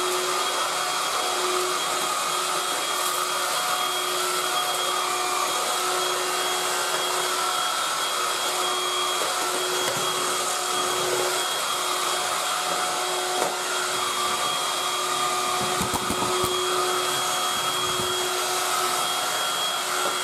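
Tefal Dual Force TY6751 21.6 V cordless stick vacuum running steadily as it is pushed over a tiled floor: a constant airflow rush with a steady motor whine. A few low knocks come in the last few seconds.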